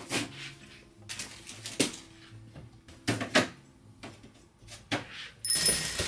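Woven wooden storage baskets and their lid being set down and handled: a scattered series of light knocks and clacks. Near the end, a loud rustle of a duvet being shaken out.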